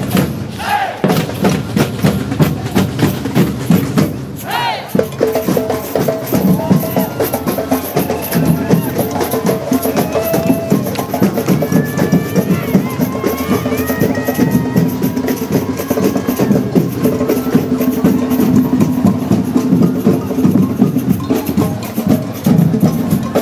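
Parade drum band playing a steady, driving rhythm on large marching bass drums and hand drums.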